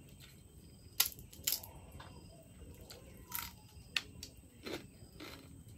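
Close-up eating sounds: a person chewing and smacking her lips, with about half a dozen short sharp clicks and crunches spread through the few seconds.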